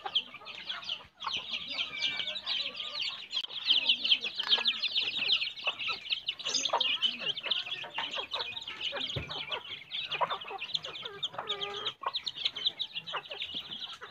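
A brood of chicks peeping nonstop in a dense high chorus, with a mother hen clucking now and then below it.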